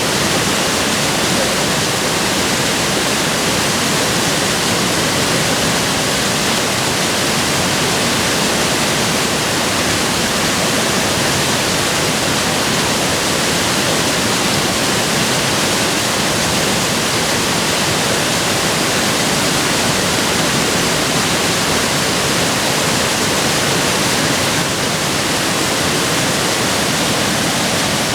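Sogi Falls, a very wide waterfall on the Sendai River, with water falling and rushing in a steady, loud, unbroken roar.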